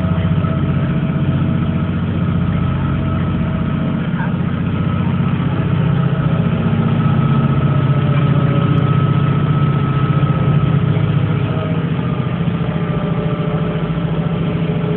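Steady low engine drone heard from inside a car cabin on a ferry's car deck, with a faint steady higher whine above it.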